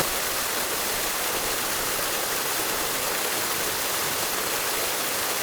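Steady rush of a waterfall, a continuous even roar of falling water.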